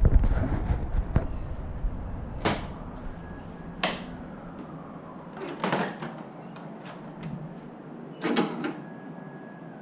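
Four separate clunks spaced one to three seconds apart, like a door or latch being handled. A low rumble under them dies away about halfway through. No engine is running.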